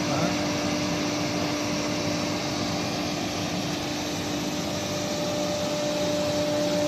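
Wood CNC router running steadily: a constant machine hum with two steady tones over an even hiss.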